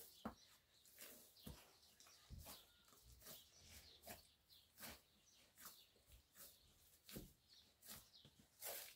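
Bread dough being kneaded by hand in a large aluminium basin: faint, irregular squelching presses, roughly one a second.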